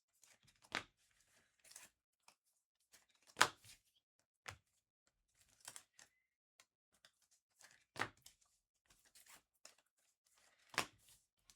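Trading card packs and cards being handled: foil wrappers tearing and crinkling with soft rustling, and four sharp snaps spread through the stretch.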